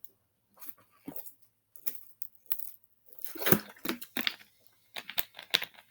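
Scattered soft crackles and rustles, with a cluster of louder ones about halfway through.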